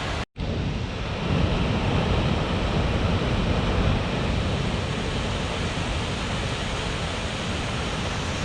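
Steady roar of Toketee Falls, a tall waterfall crashing into its pool, with a heavy low rumble that may partly be wind on the microphone. The sound cuts out for a moment about a third of a second in.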